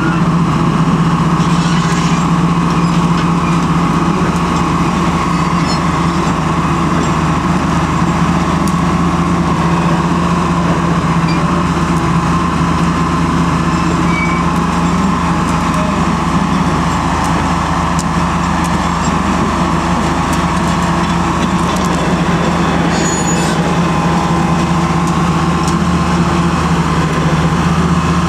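The diesel engine of a 1979 Bantam 366C hydraulic excavator runs steadily at working speed while the boom, arm and bucket are worked and the upper body swings.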